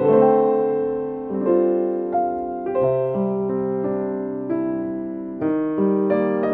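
Background music: slow, soft piano, single notes and chords struck about once a second and left to ring.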